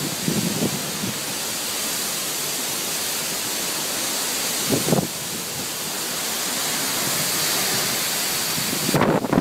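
Steady rushing noise of wind and rain in a storm, with a brief louder gust about five seconds in and rougher, choppier gusts at the very end.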